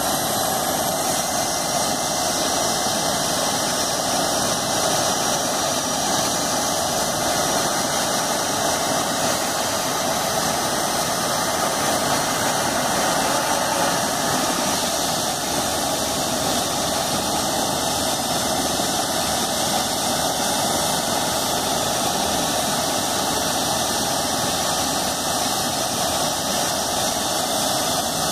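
Eurocopter EC135 helicopter on the ground with its twin turbines running and main rotor turning: a steady turbine whine over the rush of the rotor, holding level without spooling up or down.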